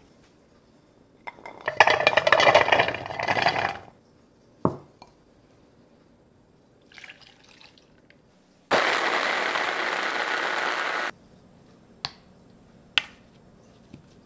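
Peeled garlic cloves clattering into the plastic bowl of a small electric food chopper. A few seconds later the chopper's motor runs steadily for about two and a half seconds and cuts off abruptly as it minces the garlic with a little water. A couple of light clicks follow near the end.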